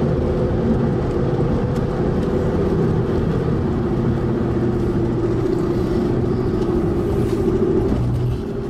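Motor vehicle running steadily: an engine hum over a low rumble of road and wind noise, easing slightly near the end.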